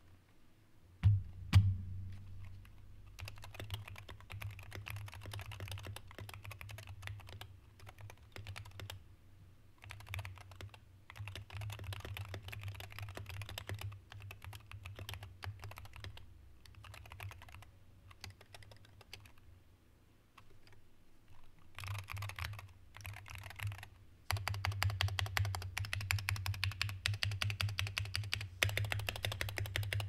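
Typing on a Wooting 60HE keyboard with magnetic Lekker switches, in stock form: runs of keystrokes broken by short pauses, with two heavier knocks about a second in. From about three-quarters of the way through the typing becomes faster and louder.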